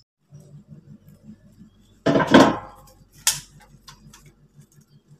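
Hands working in a large metal bowl of holy water: a short noisy burst about two seconds in, then a single sharp clink about a second later, over a faint low pulsing hum at about four beats a second.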